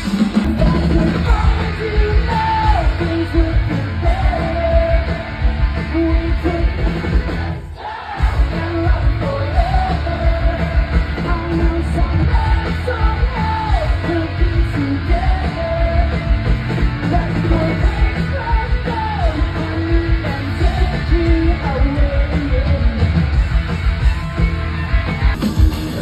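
Live punk-rock band playing loud through a big outdoor PA, with a singer shouting over guitars and drums. The sound breaks off about eight seconds in and again near the end, cutting to other bands' sets.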